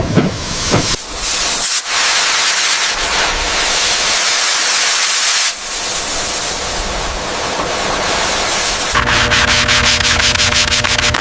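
A few sharp clicks, then a loud, steady hiss lasting about seven seconds, like steam or spray. About nine seconds in it gives way to a fast, even rubbing or sanding of metal over a faint steady hum.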